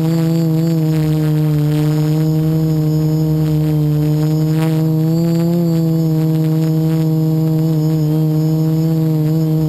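Quadcopter's electric motors and propellers heard from its onboard camera: a loud, steady pitched drone that rises and falls slightly in pitch, most noticeably about five and a half seconds in.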